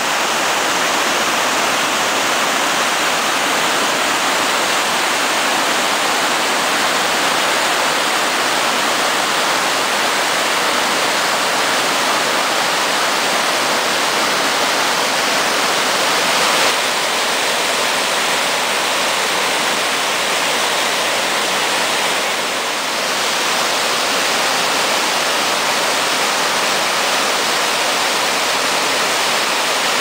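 Nugget Falls, the glacier-fed waterfall beside Mendenhall Glacier, heard close up at its base: a loud, steady rush of water pouring down the rock face and crashing into the pool.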